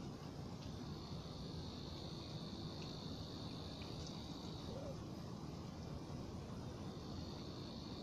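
Outdoor ambience: a steady high insect trill that stops a little under five seconds in and starts again near the end, over a low steady background rumble.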